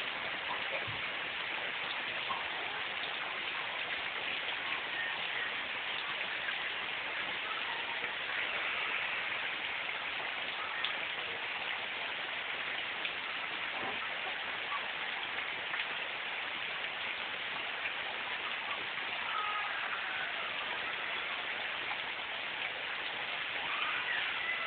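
Heavy rain pouring down steadily, an even hiss of drops.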